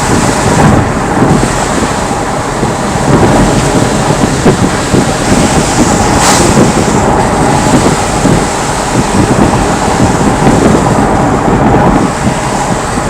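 Loud, steady cabin noise of a car driving in a typhoon, heard through the dashcam: tyres on the wet road, wind and rain on the body. There is a single brief knock about halfway through.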